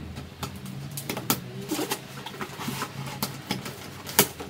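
Scissors snipping and cutting at the packing tape and flaps of a cardboard box: irregular sharp clicks and crunches, the loudest about four seconds in, over a low steady hum.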